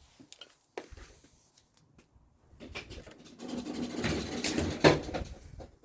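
Handling noises as the strimmer or the camera is shifted: a few light clicks, then a couple of seconds of scraping and rustling that ends in a knock near the end.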